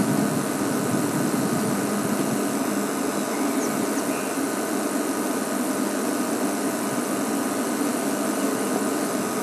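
Game-drive vehicle's engine idling steadily.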